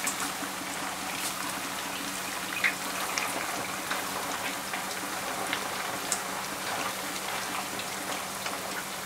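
A full batch of marinated chicken pieces deep-frying in a pot of oil on lowered heat: a steady crackling sizzle with scattered small pops.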